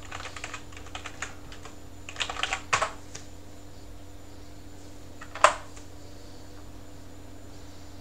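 Typing on a computer keyboard: a few faint scattered keystrokes, a quick run of keys about two seconds in, and a single sharper keypress about five and a half seconds in, over a low steady hum.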